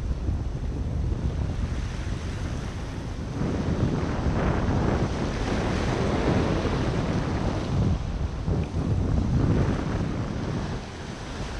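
Ocean surf washing in foaming sheets over a rocky reef edge, with wind buffeting the microphone. The wash swells louder about three seconds in and eases near the end.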